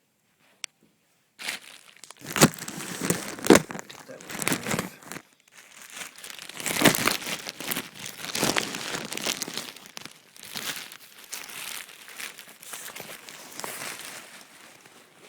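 Packaging crinkling and rustling as the chest rig is pulled out and unwrapped, irregular throughout, with a few sharp crackles in the first few seconds. It starts after a short pause with a single click.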